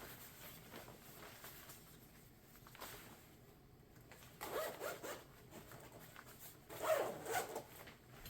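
Rain jacket zipper being pulled, in two short zips, about four and a half and seven seconds in.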